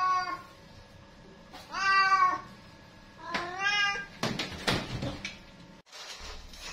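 A domestic cat meowing repeatedly: the end of one meow, then two more, each rising and falling in pitch, about a second and a half apart. After the last meow comes a couple of seconds of irregular scuffling, rustling noise.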